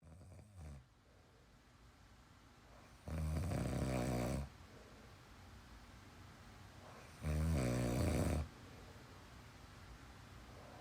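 A man snoring in his sleep: two loud snores about four seconds apart, each lasting a little over a second, with a faint short one at the very start.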